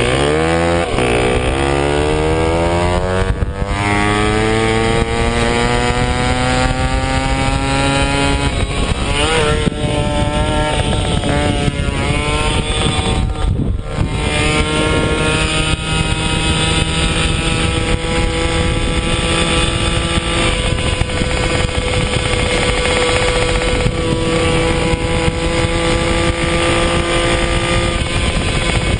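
Puch Maxi S moped's 49 cc single-cylinder two-stroke engine under way, its pitch climbing steadily over the first eight seconds or so as it gathers speed, wavering for a few seconds, then holding steady at high revs.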